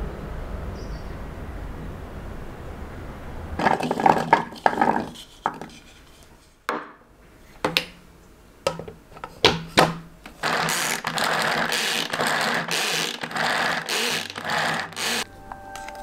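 Hand-powered vegetable chopper mincing peeled garlic cloves. First come clicks and knocks as the container is handled and the lid is fitted, then from about ten seconds in a quick run of about seven whirring, rasping strokes as the blades spin through the garlic.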